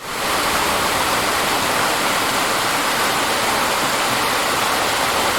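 Waterfall rushing close by: a loud, steady roar of falling water.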